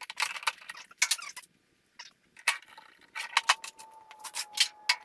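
Light metal parts clinking and rattling in short bursts as they are handled, with a faint steady high tone coming in about halfway through.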